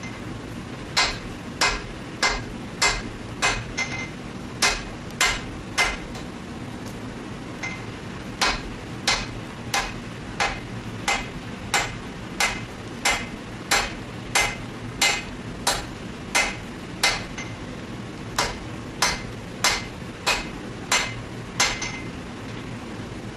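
Hammer blows on steel over an anvil, as in hand-forging a blade: sharp, ringing strikes at a steady pace of about one and a half a second, in three runs with short pauses between, over a steady low rumble.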